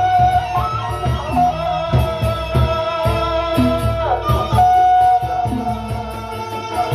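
Sasak (Lombok) traditional gamelan music: a bamboo suling flute plays a held melody with sliding notes, including a falling slide about four seconds in, over steady low drum strokes.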